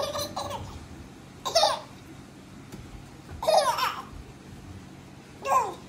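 A baby's short high-pitched squeals of excitement, four of them about two seconds apart.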